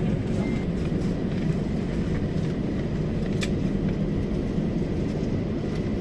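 Cabin noise of a jet airliner taxiing after landing: a steady low rumble of idling engines and wheels rolling on the taxiway, heard from inside the cabin. A faint steady whine sits above it, and there is a single light click about three and a half seconds in.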